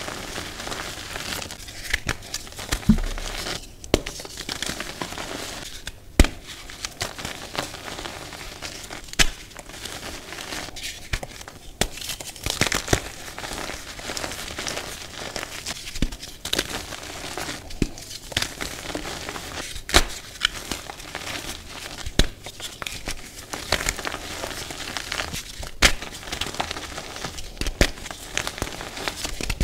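Hands crumbling and squeezing chunks of green-dyed reformed gym chalk into powder: a continuous dry crunching and crackling, broken by frequent irregular sharp snaps as harder pieces break.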